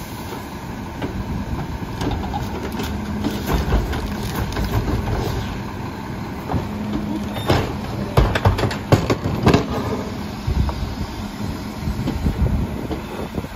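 Rear-loader garbage truck's engine running steadily as carts are tipped into the hopper. A cluster of loud knocks and bangs comes about eight to ten seconds in, from carts hitting the hopper and trash dropping in.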